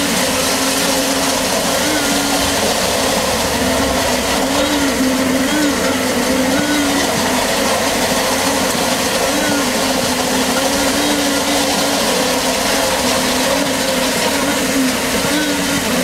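Concrete deck finisher running over fresh concrete: a steady mechanical drone whose pitch wavers a little up and down, with the rumble of its roller and drive.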